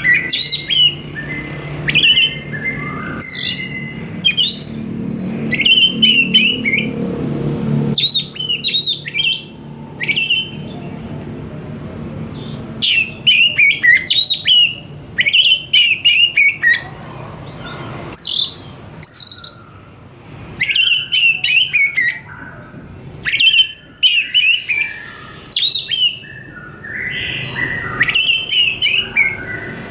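Oriental magpie-robin (kacer) singing in repeated bursts of varied whistles and chatter, each a second or two long with short pauses between. A low hum runs underneath for the first several seconds.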